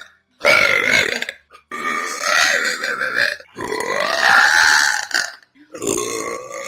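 A woman belching four times in a row; the middle two burps are long and drawn out, the first and last shorter.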